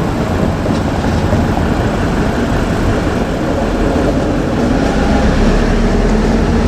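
JR Kyushu 787-series electric train running past close by: a loud, steady noise of wheels on rails that holds without a break.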